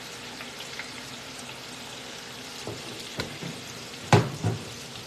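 Hot oil sizzling steadily in a deep fryer, with a few sharp knocks, the loudest about four seconds in.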